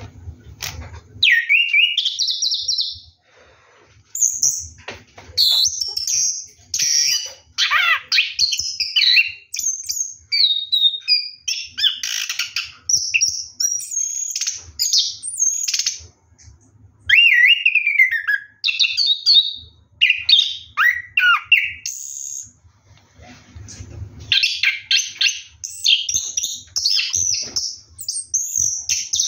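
Chestnut-capped thrush (anis kembang) singing a long run of rapid, varied whistled phrases with quick up-and-down notes, broken by a few short pauses.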